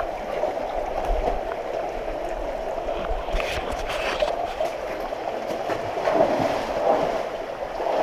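Shallow stream water running over rocks, a steady rushing, with splashing steps through the water about three to four seconds in.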